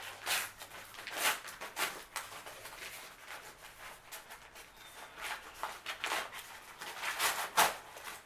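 Packaging being opened and handled by hand: an uneven run of short rustles and scrapes, with a few louder ones about a second in and again near the end.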